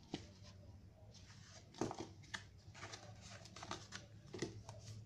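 Paper and card packaging of a tempered-glass screen protector being handled and pulled apart: faint rustling with a few sharp clicks and taps, the loudest just under two seconds in.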